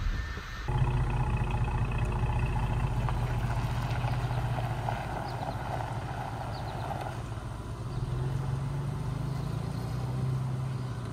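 A steady low mechanical hum, like an engine running, that starts abruptly under a second in and holds on, easing slightly midway and swelling again near the end.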